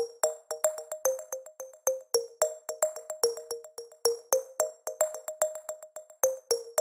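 Background music: a light synthesizer keyboard tune of quick, short plucked notes, about four a second.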